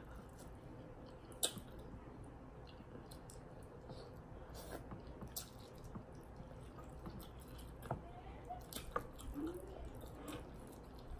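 Quiet chewing and wet mouth sounds of people eating sauce-covered seafood boil, with scattered short clicks and smacks.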